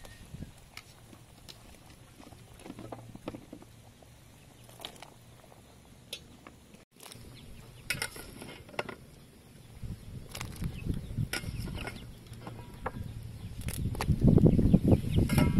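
A stainless steel pot of broth boiling, with chunks of vegetable knocking and splashing as they go into it, scattered clicks and knocks throughout. The sound grows louder over the last few seconds.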